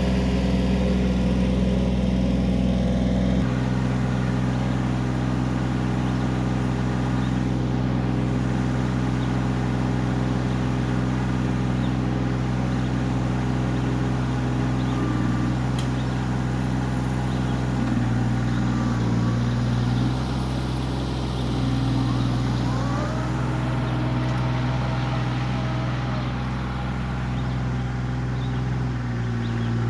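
Kioti CK20S compact tractor's three-cylinder diesel engine running steadily during backhoe work, its note shifting a few seconds in and again past the middle as engine speed or load changes.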